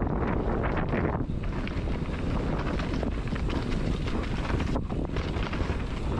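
Wind buffeting the microphone of a downhill mountain bike's onboard camera at riding speed, with a continuous clatter and rattle of the bike over a rocky, rooty trail.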